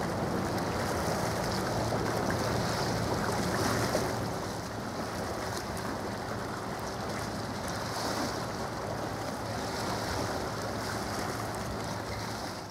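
Wind and choppy sea water: a steady rushing wash with wind buffeting the microphone and a faint low steady hum underneath. The sound drops a little about four seconds in.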